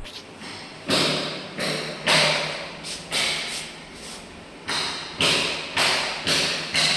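A series of about ten sudden thuds or knocks in an uneven rhythm, each fading out over about half a second.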